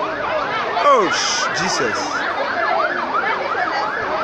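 Several emergency-vehicle sirens wailing at once, their rising and falling tones overlapping, with one loud falling sweep about a second in. A short hiss sounds about a second in.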